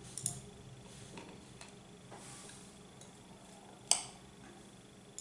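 Light handling clinks of a glass mixing bowl and metal spoon while corn topping is scooped onto bread: a couple of small clicks near the start and one sharp clink about four seconds in, over a faint steady hum.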